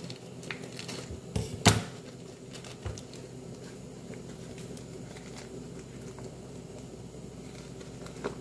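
A small sauce-mix packet being pulled and torn open by hand: a few sharp crinkles and tearing noises in the first three seconds, the loudest about a second and a half in. A steady low hum runs beneath.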